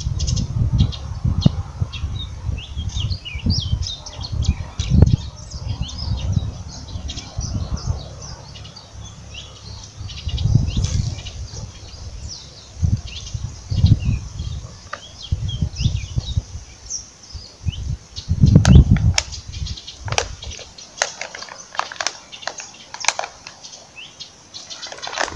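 Many birds chirping and calling in quick, short notes, over low rumbling surges that swell and fade irregularly. The rumbling stops about four seconds before the end, leaving the birdsong.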